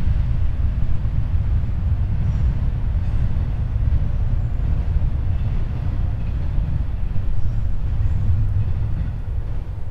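Freight train cars rolling past close by: a steady low rumble of steel wheels on the rails, with a few faint high squeaks.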